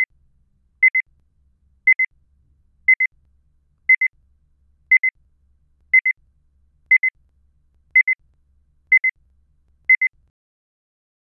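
Electronic double beeps, one high-pitched pair each second, eleven pairs in all, like a digital alarm clock or countdown timer.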